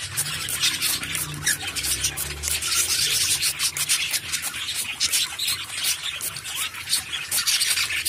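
Cockatiels' wet feathers rustling and fluttering in quick, irregular strokes as the birds flap their wings and shake out their plumage after a bath.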